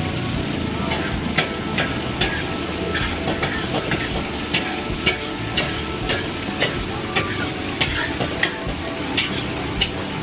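Oil frying in a wok with a steady sizzle. A metal ladle-spatula is stirred through it, clicking and scraping against the wok about twice a second.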